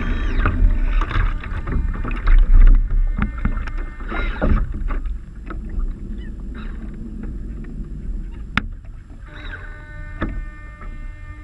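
Water sloshing and gurgling against the hulls of a small sailing trimaran moving slowly, over a low wind rumble on the microphone, louder in the first half. Occasional sharp knocks and short squeaky tones come through, a cluster of them near the end.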